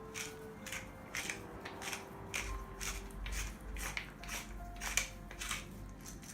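Pepper grinder being twisted, grinding black peppercorns in a steady run of short strokes, about two a second.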